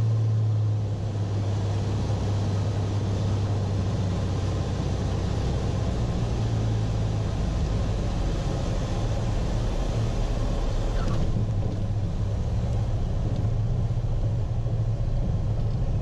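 1952 Beechcraft Bonanza's flat-six engine and propeller droning steadily at low landing power, heard from inside the cockpit with rushing air noise, through the flare and a smooth touchdown. The drone eases about a second in, and the rushing hiss drops away about eleven seconds in as the airplane slows on the runway.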